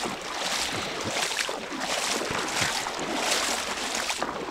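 Water splashing and sloshing around a small boat, swelling and easing about once a second, with wind on the microphone.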